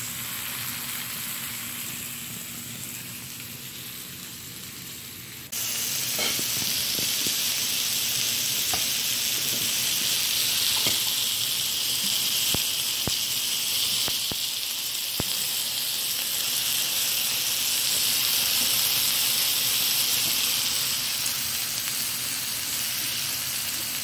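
Shrimp, chicken breast and steak sizzling on an electric griddle, a steady hiss. It jumps louder about five seconds in, and a few sharp clicks come through it in the middle.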